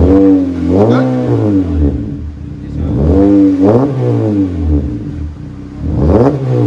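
A 2017 Honda Civic's exhaust with the muffler deleted (resonator and stock catalytic converter kept) is revved in quick blips about four times. Each time the pitch climbs and then falls back toward idle.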